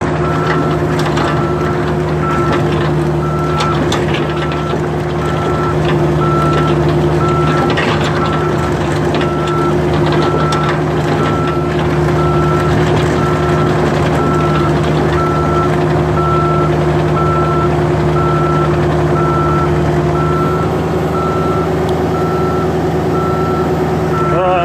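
Backup alarm on heavy equipment beeping at a steady, even pace over the continuous drone of a diesel engine running under work. Near the end the engine's pitch rises slightly.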